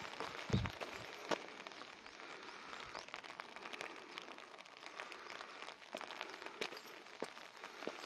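Light spring rain falling, a steady hiss with scattered sharp ticks of drops landing close by, and a brief low thump about half a second in.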